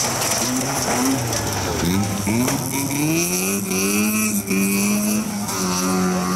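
Several folkrace cars' engines running hard on a dirt track, their pitch rising and falling again and again as the drivers rev up and shift. A high steady whine runs through the middle stretch.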